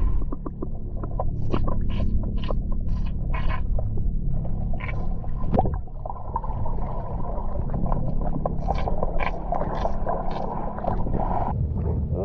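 Muffled underwater sound heard through a camera submerged in a swimming pool: a steady low rumble of the water with repeated short hissing bursts of bubbles and water jets as swimmers move and fire super soaker water guns under water.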